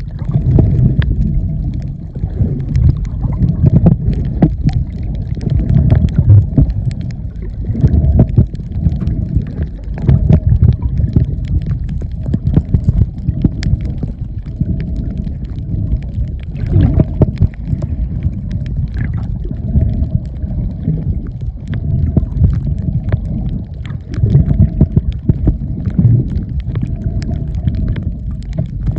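Muffled underwater noise from a camera held below the surface: a loud low rumble of water moving against the mic in uneven surges, with scattered faint clicks and a faint steady hum.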